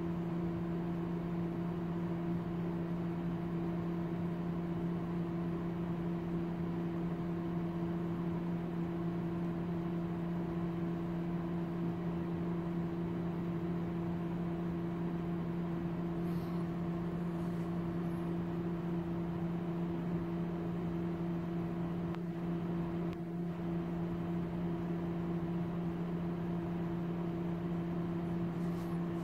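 Steady electrical hum, a low tone with its overtones, from the equipment driving a continuously glowing gas discharge tube, with a few faint ticks.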